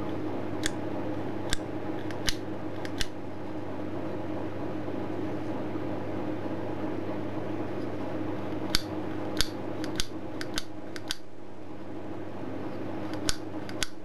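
A 1950s metal door lever handle clicking sharply as it is worked and snaps back on its repaired return spring. About a dozen clicks come in three groups, over a steady background hum.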